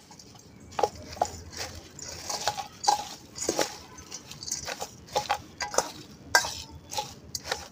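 Metal spoon stirring a dry mix of puffed rice and flattened rice in a stainless steel bowl: irregular clinks and scrapes of the spoon against the bowl, some ringing briefly.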